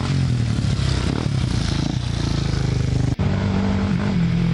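Race ATV engine running under throttle on a dirt trail, its pitch wavering as the rider works the throttle. About three seconds in the sound cuts out for an instant, then an ATV engine runs on at a steadier, slightly higher pitch.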